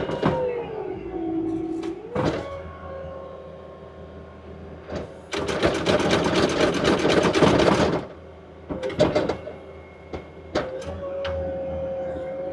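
Diesel work machine running under load; its engine note sags and then recovers early on. A rapid mechanical rattle lasts about two and a half seconds in the middle and is the loudest part, followed by a few separate knocks.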